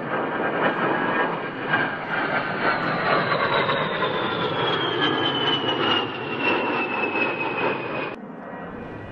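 Twin electric ducted fans of a Dynam A-10 Warthog RC model jet whining in a fly-by. The high whine slides steadily down in pitch as the model passes, then drops away suddenly near the end.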